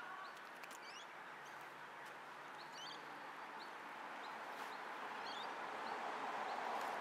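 Faint outdoor ambience: scattered short bird chirps over a steady hiss that grows louder through the second half.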